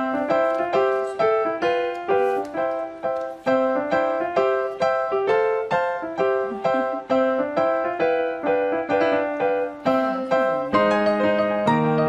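Background music: a keyboard melody of evenly spaced single notes, each fading after it is struck, with lower chords joining in near the end.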